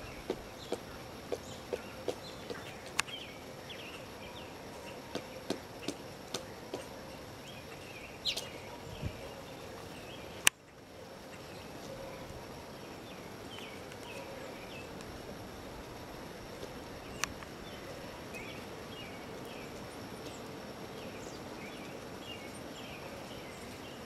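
Pileated woodpecker chiselling into a rotting stump: sharp wooden knocks at about two a second, then more scattered strikes that stop after about nine seconds. One sharp click comes a second later, and after that only steady outdoor background with faint high chirps.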